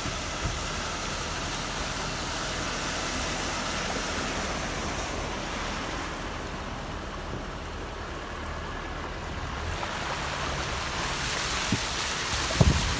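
Muddy floodwater of a mudflow rushing in a steady noisy flow, with wind thumping on the microphone near the end.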